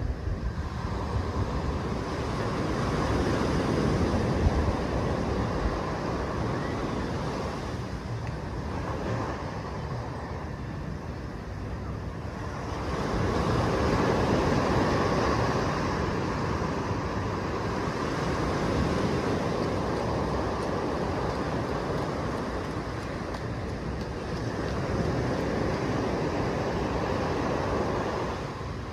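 Small waves breaking and washing up a sandy beach, the surf swelling and easing in slow surges every several seconds.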